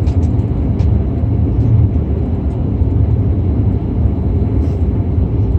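Cabin noise inside an Airbus A340-600 on the ground just after landing: a loud, steady low rumble from the aircraft rolling on the ground, with scattered light rattles and clicks.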